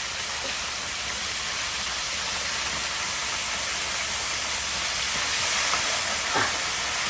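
Whole chicken deep-frying in hot oil: a steady sizzle that swells slightly toward the end.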